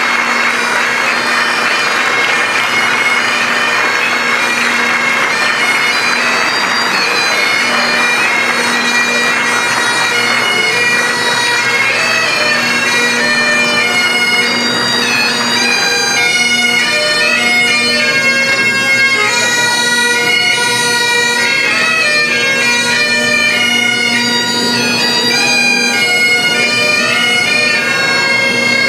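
Bagpipes playing a tune over a steady, unbroken drone.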